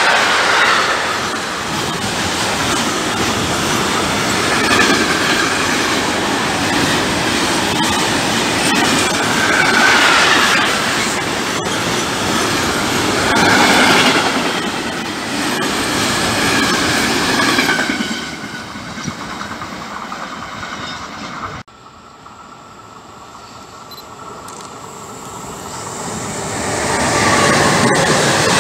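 Freight train of container wagons rolling past at close range: wheels clattering and squealing on the rails, the noise swelling every few seconds as the wagons go by. About two-thirds of the way through it cuts off suddenly. A quieter rumble follows and builds as the next freight train, an electric locomotive hauling closed wagons, approaches and passes near the end.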